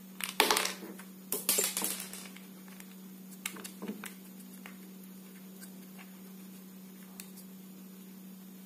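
Plastic clicking and rattling as a take-apart toy construction truck is handled and its screws are worked with a small screwdriver: two short bursts of clatter in the first two seconds, then a few single clicks, over a steady low hum.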